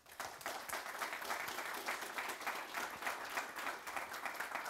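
Audience applauding: many people clapping together, starting suddenly and holding steady.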